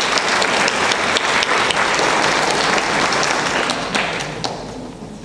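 Audience applauding: dense clapping that thins out and dies away near the end, with a few last single claps.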